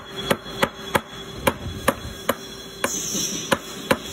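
A brass rod or drift tapped repeatedly against a metal cylinder, a series of sharp light knocks at about two a second. Soft brass is used so the metal part is struck without being marred.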